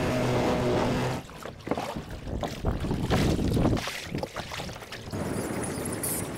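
A small outboard motor runs with a steady hum for about the first second, then cuts out. After that, wind buffets the microphone in irregular gusts over choppy open water.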